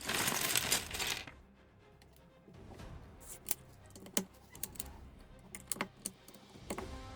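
A loud rustle of plastic lasting about a second, then scattered sharp clicks of small LEGO pieces being handled and pressed together, over quiet background music.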